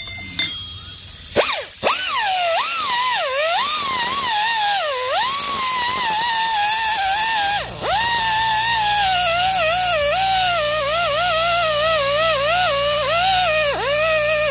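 Pneumatic die grinder running at high speed, its whine wavering up and down in pitch as it is pressed into the work and eased off. About halfway through, an oil-free piston air compressor starts up underneath with a steady low hum.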